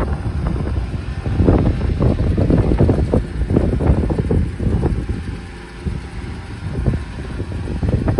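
Wind buffeting the microphone in uneven gusts, easing briefly a little past the middle.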